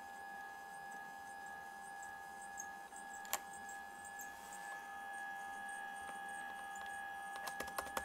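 Slot-loading optical drive of a Late 2008 aluminium MacBook making faint irregular ticking over a steady whine, with one sharp click about three seconds in and a run of clicks near the end: sounds the owner has never heard from an optical drive, which he takes for a broken drive.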